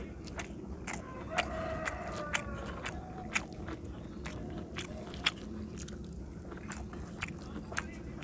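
Close-up eating sounds of a man chewing mouthfuls of rice and fish curry: wet chewing and lip smacks with many short sharp clicks.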